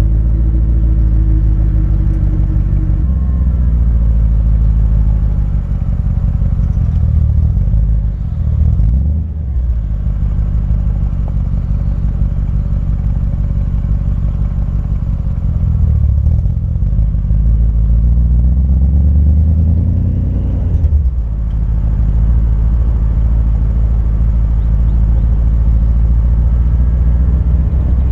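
BMW E39 M5's V8 running through an RP Motorsport custom exhaust while the car drives at low speed: a deep, steady rumble. The revs climb and then fall away sharply twice, about nine and twenty-one seconds in.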